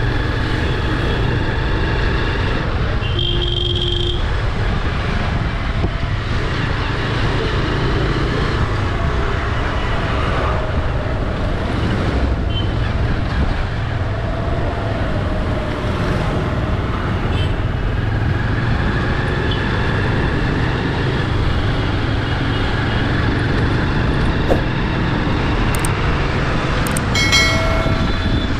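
Busy city street traffic: a steady rumble of passing engines and tyres, with a brief horn toot about three seconds in and another near the end.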